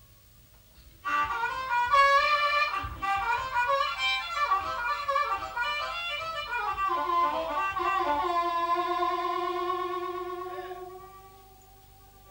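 Solo amplified harmonica played through a vocal microphone. About a second in it starts with a quick run of bent notes, then holds one long bending note that fades out near the end.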